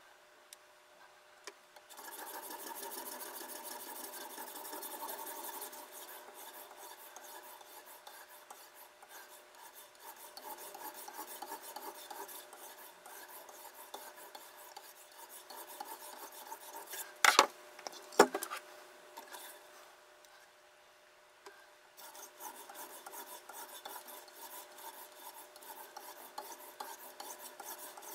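Sharpening stone on a guided-rod knife sharpener rasping back and forth across the edge of a clamped chef's knife. It starts after a couple of seconds of quiet. About two-thirds of the way through there are two sharp knocks, then a brief pause before the stroking starts again.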